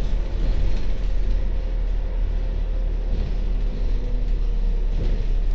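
Double-decker bus on the move, heard inside on the upper deck: a steady deep rumble of engine and road noise with a faint engine hum.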